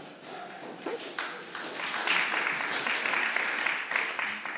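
Audience applause: a few scattered claps that swell into a burst of clapping about two seconds in, then fade near the end.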